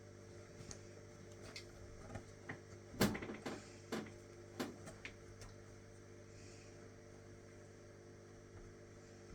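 Light clicks and taps from hands working a latch hook and yarn into rug canvas, the sharpest about three seconds in, over a steady low electrical hum.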